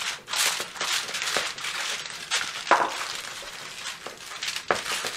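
Aluminum foil crinkling and rustling as it is pressed down and crimped around the rim of a glass baking dish, with a few sharper crackles.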